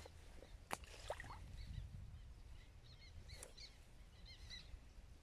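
A young bream, tossed back by hand, lands in the lake with one short splash about a second in. Faint bird chirps follow.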